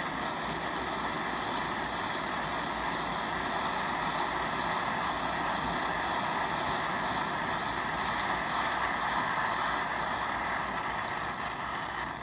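Coleman 530 white-gas stove's pressurized burner running steadily with an even rushing sound, burning off the last fuel left in the tank after it has been drained.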